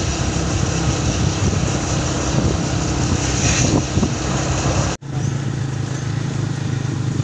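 A motor vehicle's engine running steadily over a rushing noise, cut off sharply for an instant about five seconds in.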